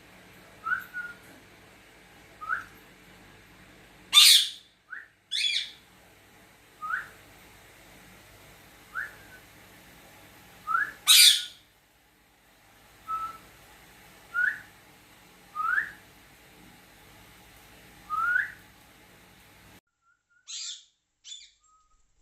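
Short rising whistled notes repeat every second or two. Pet parrots answer with a few loud, shrill calls, the loudest about four, five and eleven seconds in. The sound cuts off suddenly near the end, and two more short calls follow.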